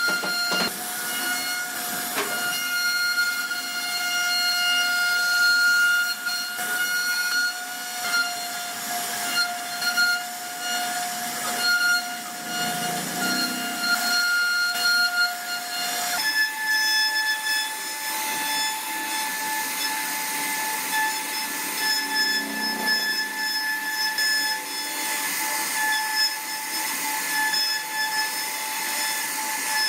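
CNC wood router running, its spindle giving a steady high whine over the hiss of the bit cutting wood. About 16 seconds in, the whine steps up to a slightly higher pitch.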